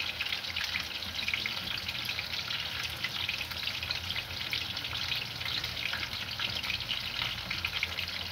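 A pot of meat-and-tomato stew cooking on the heat, a steady sizzling crackle.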